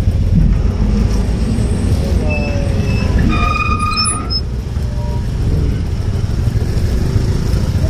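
Steady low engine rumble of motor vehicles at a ferry landing as a scooter rolls off the ferry ramp. A brief high tone sounds about three seconds in.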